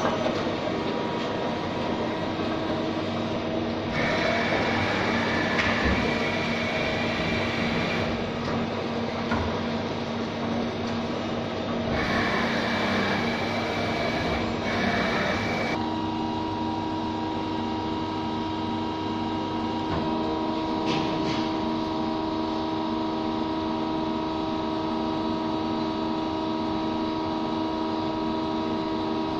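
Takisawa TC-4 CNC lathe powered up, giving a steady machine hum and whine made of several fixed tones; the mix shifts every few seconds in the first half, then settles into one steady hum about halfway through.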